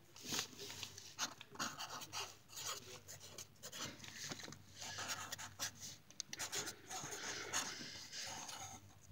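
Writing on notebook paper: soft scratching in many short, irregular strokes.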